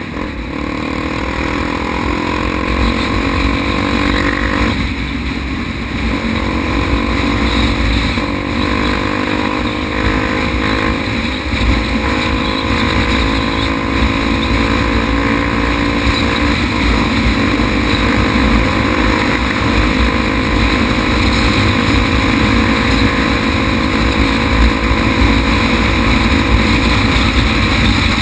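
Honda XR250 Tornado's single-cylinder four-stroke engine pulling as the bike rides and accelerates. Its pitch climbs over the first few seconds, drops at a gear change about five seconds in, then rises again and holds fairly steady.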